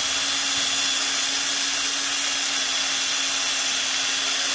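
Makita cordless drill running steadily with an even whine, its bit drilling out a seized screw in a metal RC truck chassis plate.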